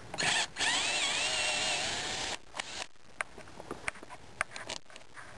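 Cordless screw gun with a square bit backing screws out of RV door trim. The motor gives a short burst, then runs for about two seconds with its pitch wavering as it spins the screw out, stopping about two and a half seconds in. A few light clicks follow.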